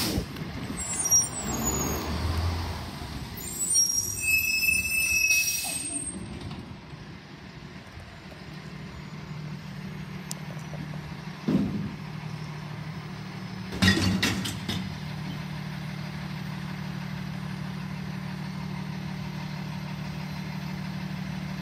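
Side-loading garbage truck: brakes squealing and an air hiss in the first few seconds, then its engine running steadily, with two loud knocks in the middle.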